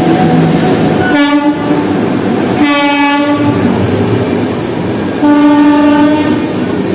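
Electric locomotive horn sounding three blasts, two short and then a longer one about five seconds in, over the loud rumble of an express train running past at speed.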